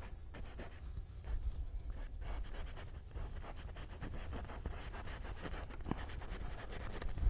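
Bristle paintbrush scratching and rubbing across canvas in short, uneven strokes, blending wet oil paint.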